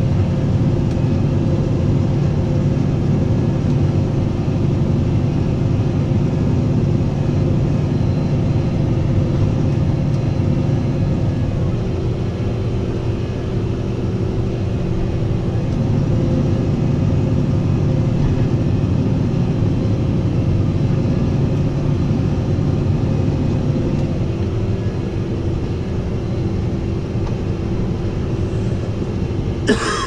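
Fendt 720 tractor's six-cylinder diesel running steadily under load while pulling a reversible plough, heard from inside the cab, its note shifting slightly a couple of times. A brief knock right at the end.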